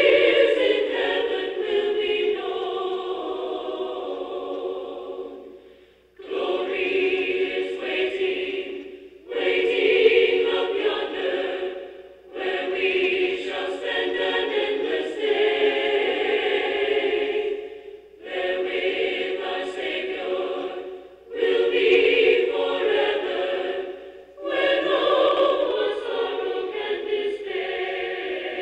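A group of voices singing a hymn a cappella, in phrases of a few seconds each with short breaks for breath between them.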